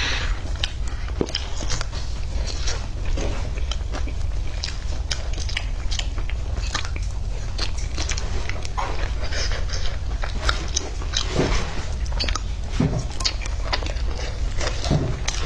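A person biting into and chewing crispy fried chicken up close, with irregular crunches and crackles, over a steady low hum.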